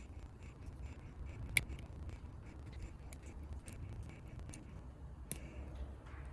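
Small metal clicks and scrapes of a tool prying the retaining clip off a lock cylinder, scattered irregularly, the sharpest about a second and a half in, over a low steady hum.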